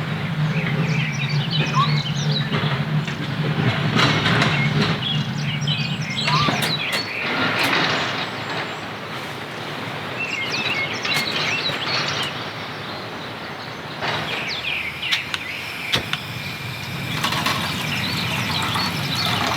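Birds chirping over a steady background hiss. A low hum underneath stops about six and a half seconds in.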